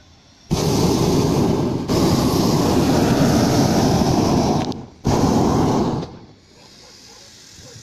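Hot-air balloon's propane burner firing loudly: it comes on about half a second in and runs about four seconds, cuts off briefly, then fires again for about a second before stopping.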